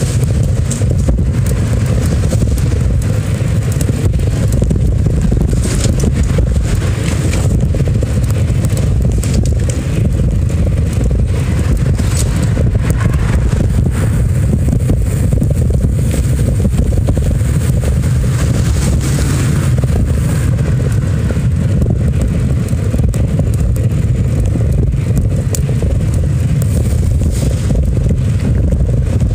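Steady wind buffeting and road rumble on a handlebar-mounted phone microphone while riding down a city street, with scattered short rattles and clicks from bumps.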